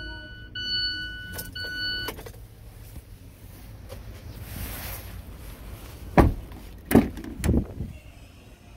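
A vehicle warning chime beeps in a repeating steady tone for about the first two seconds. It is followed by three loud thumps about six to seven and a half seconds in, as the rear door of the crew cab is handled and opened.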